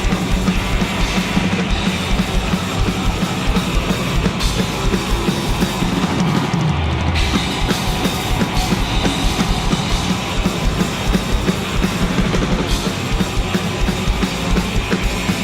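Grindnoise/noisecore music: fast, dense drumming under a wall of distorted guitar and bass noise, loud and unbroken, with the texture changing abruptly a few times.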